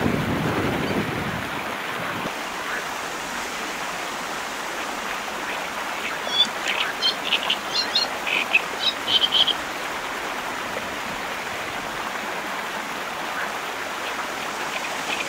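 Steady rush of a shallow river flowing over stones, fuller for the first two seconds and lighter after. About six seconds in comes a run of short high chirps lasting about three seconds.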